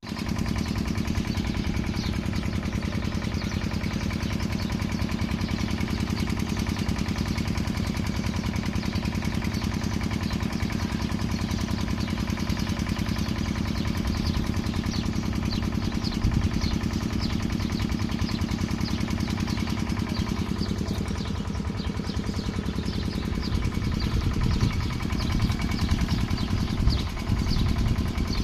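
Irrigation pump engine running steadily with an even, rapid beat; its note shifts slightly about three-quarters of the way through and it runs a little less evenly near the end.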